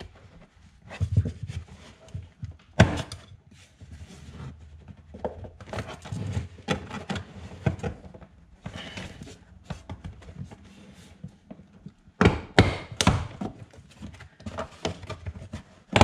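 Hard plastic interior trim panel of a C7 Corvette being pried and tugged loose by hand against its retaining clips, giving irregular knocks and thunks with plastic rustling between. A sharp knock comes about three seconds in and a cluster of loud knocks about twelve seconds in.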